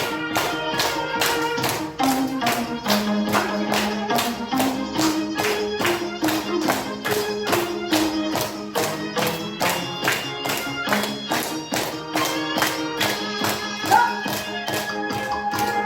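Upbeat dance music with a steady beat of sharp percussion hits, about three a second, under a moving melody.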